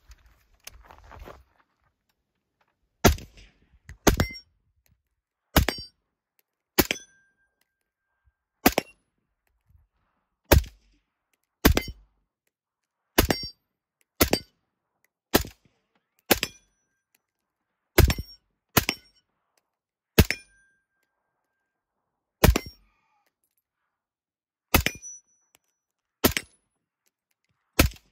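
Suppressed AR-15 rifle with a SIG suppressor firing single shots, about eighteen sharp reports at uneven gaps of one to two seconds: the first break-in rounds through a new barrel. Faint handling noise comes just before the first shot.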